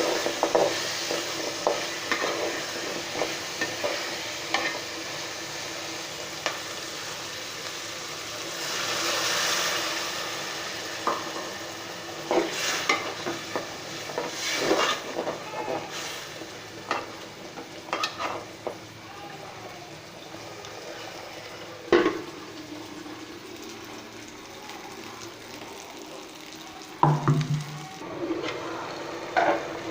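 Food frying in hot oil in a pan, sizzling steadily while a spatula stirs it, with repeated scrapes and knocks against the pan. The sizzle swells for a second or two about a third of the way in, and there is a sharp knock about two-thirds of the way through.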